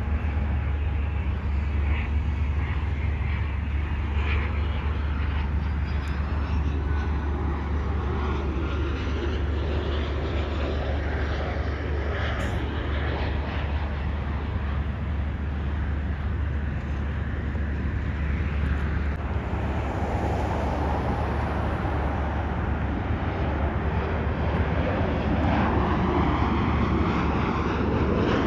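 Jet airliner engine noise from a Boeing 737-700 on final approach, building gradually over the last ten seconds as the aircraft nears, over a steady low rumble.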